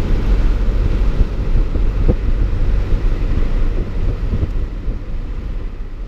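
Cab sound of a Ford Ranger swapped to a Cummins 4BT four-cylinder turbodiesel, driving with the windows down: the diesel running under heavy wind buffeting, fading out near the end.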